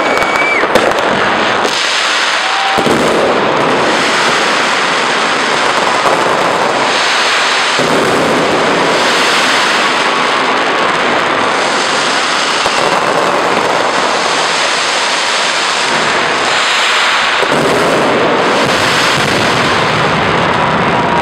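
Fireworks going off in a dense, continuous crackle, many bursts overlapping into a steady loud din.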